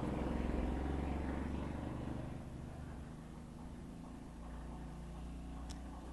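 Steady low rumble that eases slightly after about two seconds, with one faint click near the end.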